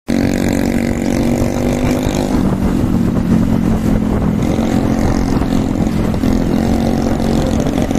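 Motorcycle engine running at a steady cruising speed, heard from the rider's seat, with heavy wind rumble on the microphone.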